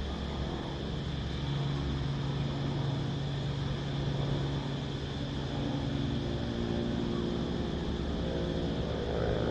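Steady high drone of cicadas over a low rumble, with a low engine-like hum whose pitch shifts in the second half.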